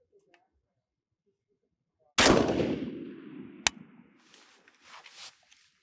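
A single rifle shot about two seconds in, its report echoing and dying away over about two seconds. A second short, sharp crack comes about a second and a half after the shot, followed by some fainter rustling noise.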